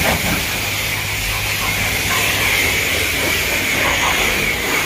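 Self-service car wash pressure-washer wand spraying a high-pressure jet of water onto a car, a steady hiss with a low hum underneath.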